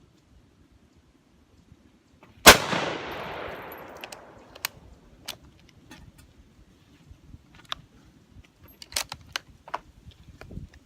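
A single rifle shot from a full-length Swedish Mauser in 6.5x55, about two and a half seconds in, with a long echoing tail. Several sharp clicks follow over the next several seconds.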